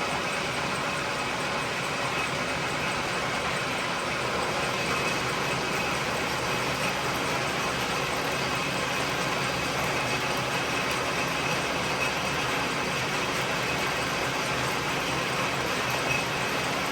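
1943 South Bend metal lathe running steadily under power while cutting a deep internal thread: an even mechanical whir with a faint high whine.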